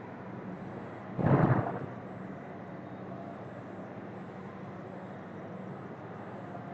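Steady hiss and faint low hum of a microphone's background noise, with one short, louder noise about a second in.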